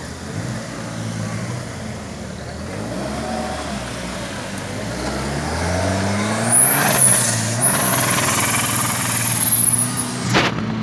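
Off-road buggy engine revving, its pitch climbing as it drives close past, with a high hiss while it is nearest and a sharp knock near the end.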